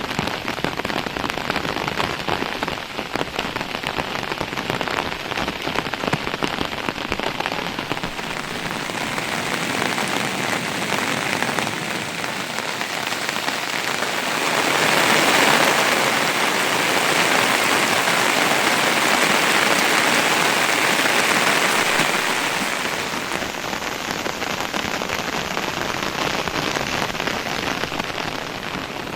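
Heavy rain falling, a dense hiss of countless drop impacts. It swells louder about halfway through for several seconds, then eases back.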